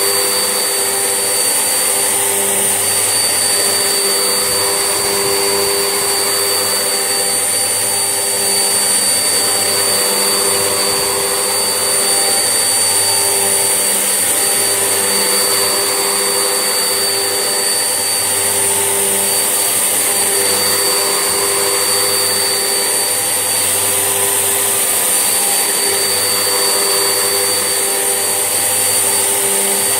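Vax Essentials vacuum cleaner running steadily while hoovering: a constant rushing noise with a steady high-pitched motor whine.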